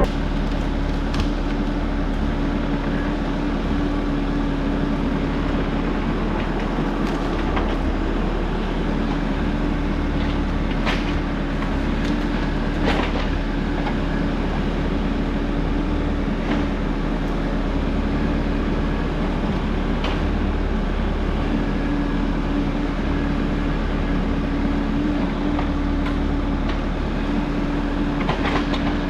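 Case skid steer with a Shearex mulching head running steadily while cutting weeds: a constant machine drone and hum, with a few sharp clicks here and there.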